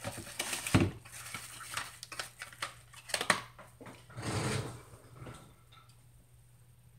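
Scattered knocks and clinks of small objects being handled on a wooden table, with a brief rustle about four and a half seconds in, then near quiet.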